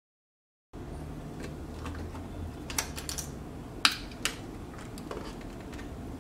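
Sharp plastic clicks and taps, four or five of them close together near the middle, as plastic opening picks are worked around the edge of an iPhone 7 held by a suction cup, separating the screen from its adhesive. A low steady hum runs underneath, and the sound begins after a brief dead silence.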